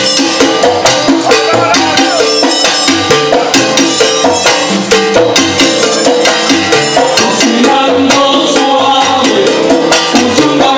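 Salsa orchestra playing live and loud: a trumpet section over congas, timbales, maracas and bass, keeping a steady driving beat.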